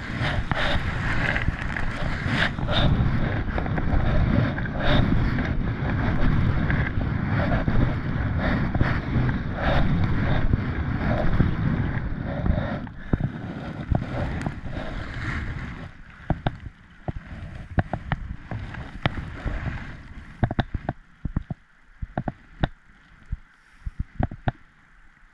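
A kayak running fast, rippling river water: loud rushing water with wind buffeting the microphone, mixed with paddle strokes. About fifteen seconds in it calms to a quieter hush broken by scattered short drips and light taps from the paddle.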